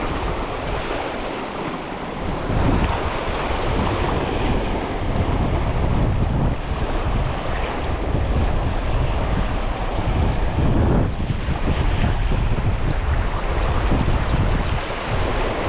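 Wind buffeting the microphone over the steady wash of waves.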